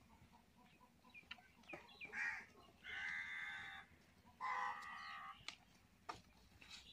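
Farm animal calling: three drawn-out cries, about two, three and four-and-a-half seconds in, each up to a second long, with a few small clicks around them.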